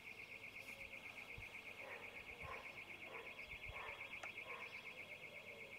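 Faint alarm sounding a high tone in rapid, even pulses, set off by a power surge that cut the electricity off and on again.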